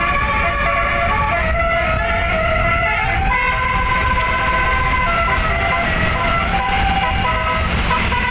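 A 12-note Basuri telolet musical air horn with roof-mounted trumpets playing a tune on a bus, in held notes that step from pitch to pitch, over the low rumble of the bus.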